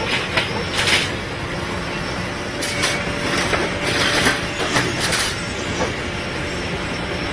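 Track-renewal machine running steadily as it lays rail onto the sleepers, with several sharp metal-on-metal clanks and scrapes every second or two.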